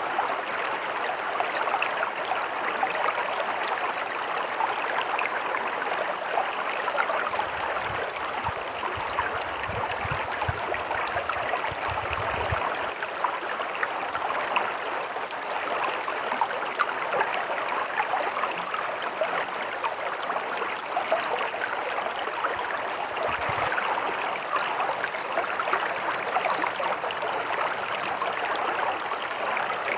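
Stream of running water flowing steadily, a busy babble of many small splashes and gurgles. A faint low rumble comes in for a few seconds partway through.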